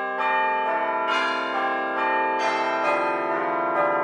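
Bells ringing in a sequence of struck notes, a new note every half second to a second, each one ringing on under the next.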